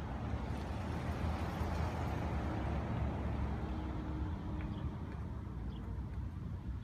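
Road traffic on the street beside the field: a low, steady rumble with a swell of noise that builds about a second in and fades by about five seconds, like a vehicle going past.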